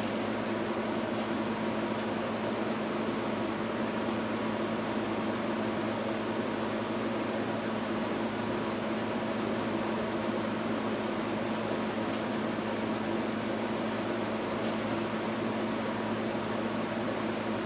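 Steady fan hum with a low, even drone that does not change, and a few faint light clicks.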